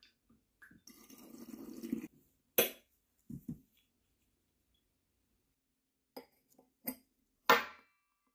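Liquid swishing in a glass jug for about a second, growing louder, then a sharp glass clink and two soft knocks. A few clicks follow, ending in the loudest clink as a ball of ice is set into a glass tumbler with tongs.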